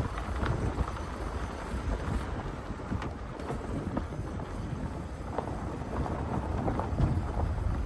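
Wind buffeting the microphone, an uneven low rumble, with a few faint scattered clicks or taps.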